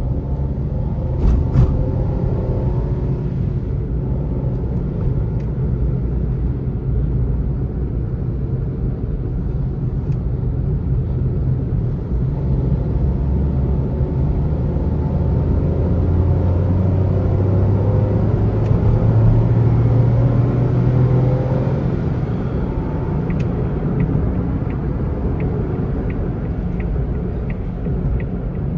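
Suzuki Alto VXL AGS's 660 cc three-cylinder engine heard from inside the cabin, running under way with road noise. The engine note climbs steadily through the middle and then drops back. Two sharp clicks come about a second and a half in, and near the end a turn signal ticks evenly about one and a half times a second.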